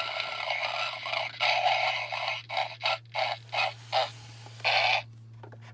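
Tinny sound effect from a Santa Homer Simpson talking figure's small speaker. It gives a rasping, grunting noise for about two and a half seconds, then a run of short bursts, with a steady low hum underneath.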